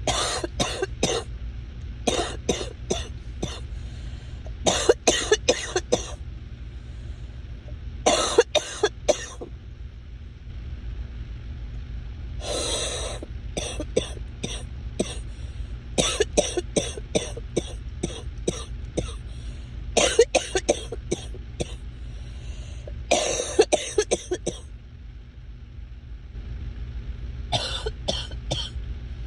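A sick person coughing in repeated fits, each fit a quick run of several short, sharp coughs, every two to four seconds. The coughing of someone congested with a cold.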